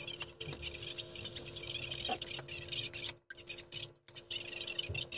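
A hand screwdriver turning a small screw into a plastic housing: a dense run of small ticks and scratchy clicks over a faint steady hum, cutting out briefly twice in the second half.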